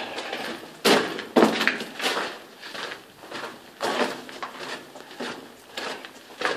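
Footsteps on the rock floor of a tunnel, echoing off the stone walls, about one to two steps a second and heaviest about a second in.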